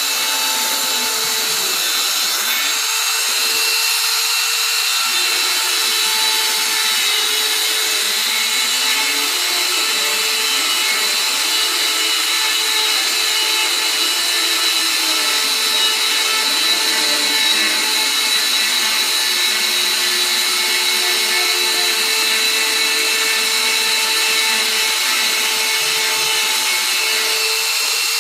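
CNC router cutting a profile: the spindle runs steadily at high speed, with a continuous high hiss. Lower tones waver up and down as the machine moves through the toolpath.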